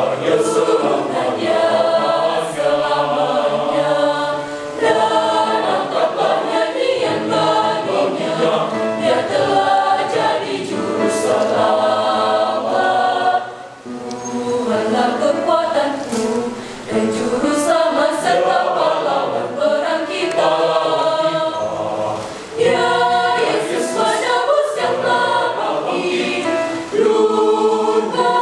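Mixed youth choir of boys and girls singing in parts, holding full chords that shift from phrase to phrase, with a short break about halfway through.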